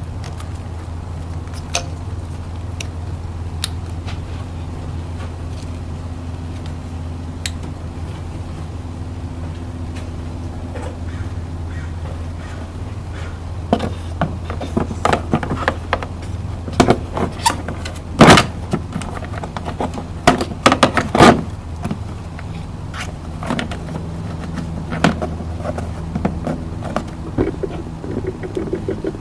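Scion tC's 2.4-litre 2AZ-FE four-cylinder engine running at a steady idle, with a series of sharp clicks and knocks about halfway through.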